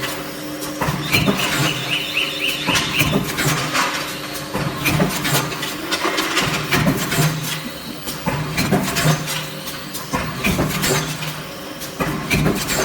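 Induction forging machine with step loader and feeder running: a steady hum under frequent metallic clanks and knocks, with a rapid squealing chatter from about one to three seconds in.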